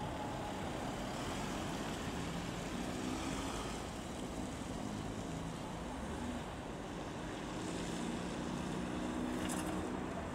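Ambulance van driving past, its engine hum and tyre noise over steady traffic noise, with a short click near the end.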